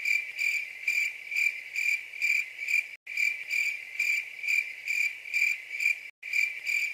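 Crickets chirping in an even rhythm of about two chirps a second. It is the stock "awkward silence" cricket sound effect: it starts suddenly out of dead silence and breaks off for an instant twice, as a looped clip does.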